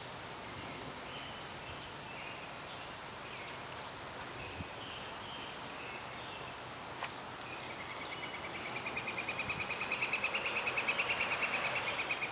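Outdoor yard ambience with scattered short bird chirps and one sharp click, then about two thirds in a rapid pulsing trill begins and grows louder.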